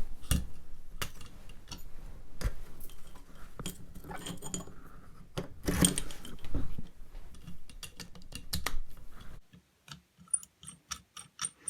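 A 1200-grit diamond stone on a guided sharpening rig being stroked along a steel pocket-knife edge: irregular scraping passes mixed with small metallic clicks and rattles from the rig. The clicks thin out near the end.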